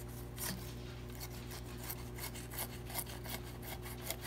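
Fillet knife scraping and slicing along a lake trout's backbone in many short, quick strokes as the fillet is cut free of the bones.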